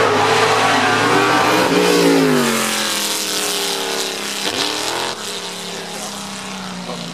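Sports-prototype racing car launching off the start line and accelerating hard away, its engine note climbing through the gears. The pitch then drops as it passes and heads off, with another quick shift about four and a half seconds in.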